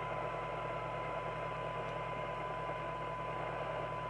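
A Skiptech TI4000FM CB radio's receiver is reproducing the signal generator's steady test tone for a SINAD measurement, with receiver hiss and a low hum under it. This is the radio's audio output while its front-end coils are being peaked for sensitivity.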